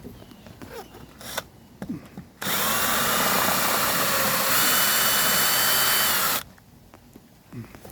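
Power drill drilling out a metal rivet, running steadily for about four seconds from about two and a half seconds in, its whine stepping up in pitch midway. A few light clicks of handling come before and after it.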